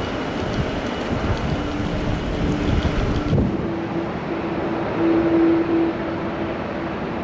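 Jet airliner engines heard at an airport: a low rumble with wind buffeting the microphone. About three seconds in the sound changes abruptly to a steady engine whine over a softer rush, louder for a moment near the middle.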